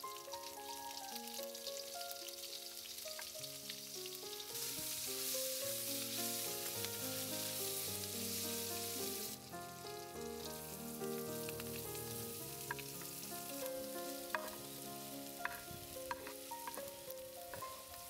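Dried fish, green chillies and onion sizzling and frying as they are added to hot oil in a wok and stirred, with a louder burst of sizzling from about four to nine seconds in. A few sharp taps of the spoon against the pan come near the end, over soft background music.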